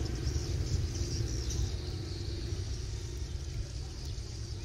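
A steady low rumble, with a high, continuous twittering of a flock of swiftlets circling overhead.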